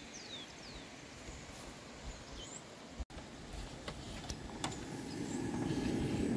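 Faint outdoor ambience with a few short, falling bird chirps. About three seconds in it cuts to a cooking spoon knocking against a pot of sausage in tomato sauce on a gas camping stove, over a rushing noise that grows louder toward the end.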